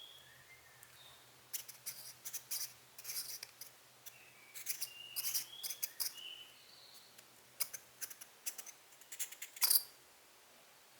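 An irregular run of small clicks and scraping ticks from metal lens parts being handled and worked by hand, with a louder click near the end.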